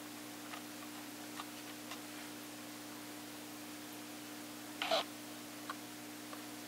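Quiet room tone with a steady low hum and a few faint ticks, broken about five seconds in by one short, louder sound.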